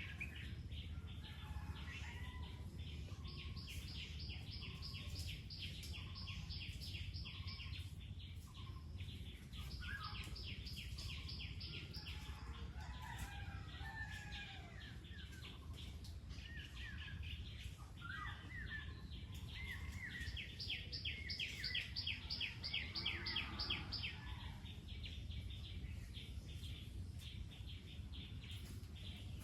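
Birds calling: runs of rapid, evenly pulsed high chirps that go on for several seconds at a time, mixed with shorter, lower chirps.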